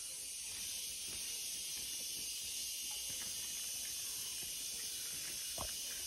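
Steady high-pitched hiss of tropical forest insects, even and unbroken, with a faint knock near the end.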